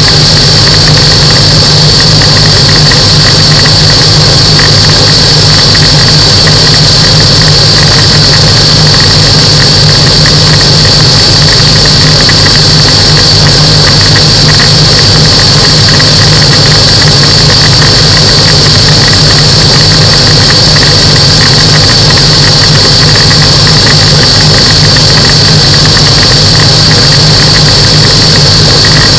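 Microlight aircraft engine and propeller running steadily in flight, very loud and constant, with a steady high-pitched whine over the low engine drone.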